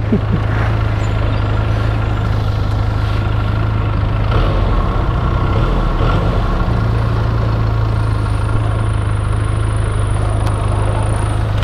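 Benelli 302S's 300cc parallel-twin engine idling steadily through its stock exhaust, the pitch wavering briefly around the middle.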